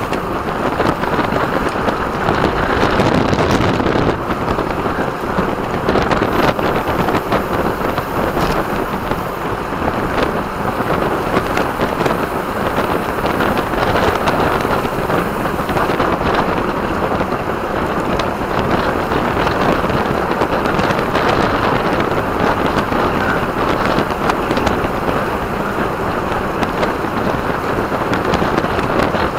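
Loud, steady wind rush on the microphone of a camera riding along on a road bike at race speed.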